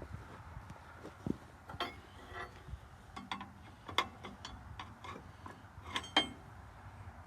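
Metal clinking and tapping as the blade cable is worked around a sheave on the TD9 crawler's blade frame: irregular light clinks, a few ringing briefly, the loudest about four and six seconds in.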